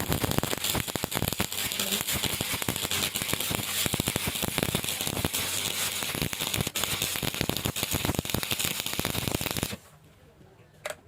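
Stick (shielded metal arc) welding arc crackling and spitting as a bead is laid, stopping abruptly about ten seconds in when the arc is broken.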